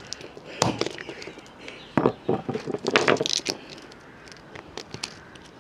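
Irregular knocks and clatters of a broken electric fan heater's casing being handled and struck, about a dozen sharp hits of varying loudness.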